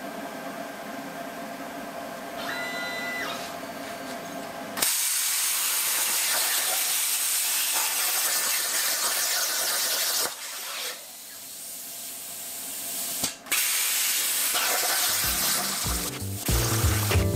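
CNC plasma cutter: a hum with a few short machine tones, then about five seconds in the plasma torch fires with a sudden loud steady hiss as it cuts 3/16-inch steel plate. The hiss drops out briefly twice, and near the end low stepped motor tones join it.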